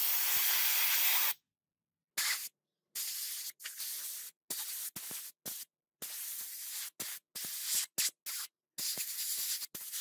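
Handheld soda blaster hissing as a jet of compressed air and baking soda is sprayed onto a metal sunglasses frame. It runs as one long burst at first, then many short bursts that start and stop sharply.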